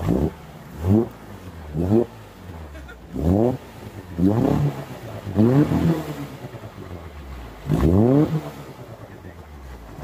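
VW Baja Bug's air-cooled flat-four engine revved in a series of short blips, each rising in pitch, about one a second, with a longer gap before the last, as the car pushes through creek water with its exhaust in the water.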